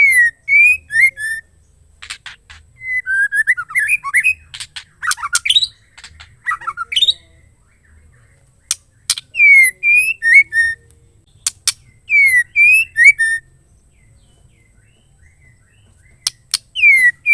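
Female white-rumped shama calling in short repeated phrases: a sharp click followed by a few quick whistled notes that swoop up and down. A longer jumbled run of notes comes a few seconds in, and there are pauses of one to three seconds between phrases.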